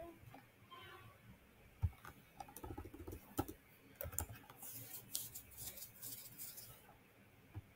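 Computer keyboard typing, faint: a few scattered keystrokes at first, then a fast run of key clicks that stops shortly before the end.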